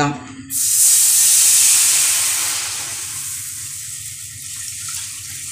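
Milk poured into a hot frying pan coated with ghee, hissing and sizzling sharply as it hits the pan about half a second in. The hiss fades after a couple of seconds into the softer steady splash of milk still pouring.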